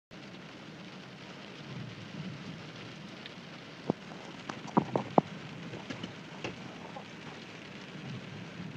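Steady rushing noise of flash-flood water, with a few sharp clicks or knocks about four to five seconds in.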